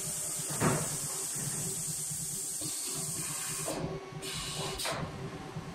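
AccTek AKM2130 automatic tool-change CNC router running, with a steady high hiss over a low machine hum. A short loud hiss comes about half a second in, the high hiss stops a little before four seconds in, and another short hiss follows near the end.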